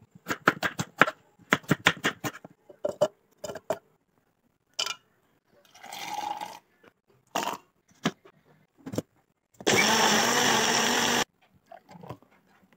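Knife chopping apple on a wooden cutting board in quick strokes, then liquid pouring into a plastic blender cup and a few knocks. Near the end a personal blender runs for about a second and a half, the loudest sound, and cuts off suddenly.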